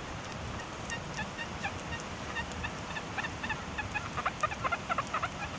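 Deus metal detector giving a run of short chirping target tones as the coil sweeps over a buried target, the chirps coming faster and louder near the end.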